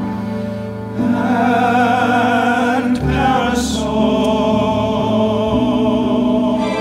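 Musical-theatre ensemble singing long held chords with vibrato, swelling louder about a second in.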